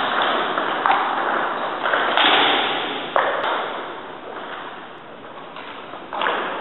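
Table tennis rally: the celluloid ball struck by paddles and bouncing on the table, sharp hits about a second apart, each trailing off in a long echo from the hall. The hits pause for a couple of seconds after the middle and start again near the end.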